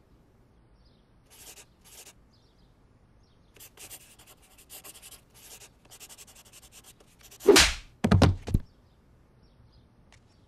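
Faint scratchy strokes, like a marker on a wall, then about seven and a half seconds in a loud swish followed by a quick run of heavy thuds.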